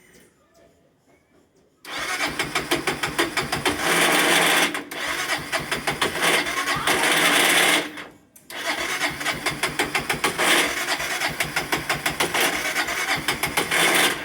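Honda CB 300's single-cylinder engine being cranked on the electric starter in two long attempts, with a rhythmic pulsing churn and a short break between them, failing to catch: the strange noise of a hard-starting engine that will not fire.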